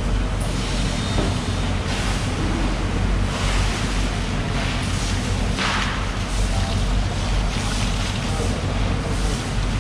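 Water running and splashing over a wet fish-cutting floor as the mahi-mahi carcass is rinsed, with a steady low machinery hum underneath; the water noise swells a few times.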